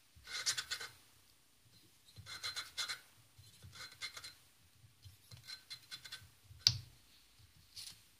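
Valve being lapped into its seat by hand with grinding paste: the valve face grinds against the seat with a gritty scraping in four short bursts as the stick is twisted back and forth, with one sharp click about two-thirds of the way through. The lapping is cleaning off the last black marks so the valve seals all round on its seat.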